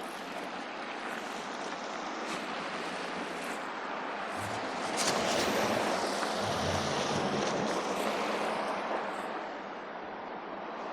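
A vehicle passing on a snowy, slushy street: a rushing tyre noise that swells about five seconds in and eases off near the end.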